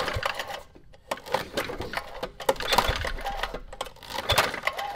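Tecumseh HS50 flathead engine being cranked by hand on its recoil starter, pull after pull, to check for spark. Each pull gives a rattling clatter of starter and engine, and the engine does not fire.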